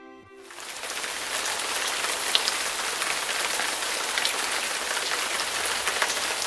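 Steady hiss of rain falling on lake water and a wet deck, with scattered sharper drop ticks. It takes over just after background music cuts off.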